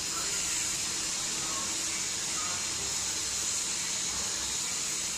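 Steady, even hiss, strongest in the high range, with no distinct sound from the hands rolling the potato balls.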